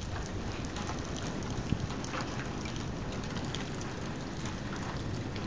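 Steady rain falling, an even hiss with scattered drops ticking close to the microphone.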